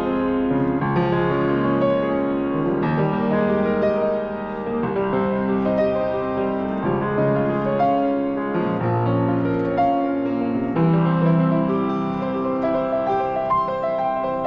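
Slow, gentle keyboard music: sustained piano or electric-piano chords and a melody line, changing every second or two.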